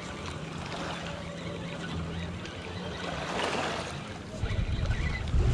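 Lakeshore wind and small waves lapping at the rocks, over a faint steady low hum. About four seconds in, heavy low rumbling on the microphone sets in and gets louder.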